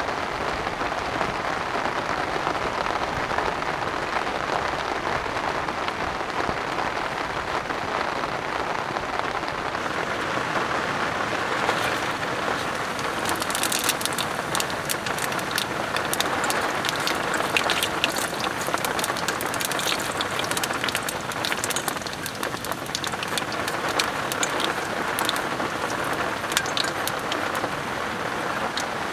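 Heavy rain drumming steadily on a tent's fabric. From about halfway, sharper individual drop strikes come thick and fast on top of the steady patter.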